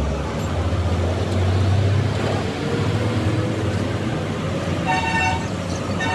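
Motor vehicle engine running with a steady low rumble, and a vehicle horn tooting twice, briefly, near the end.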